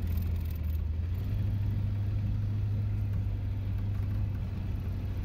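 Ford Ranchero's 5.0 (302) small-block V8 running as the car drives slowly, heard from inside the cabin: a steady low drone with road noise. On this drive the driver says the engine ran badly.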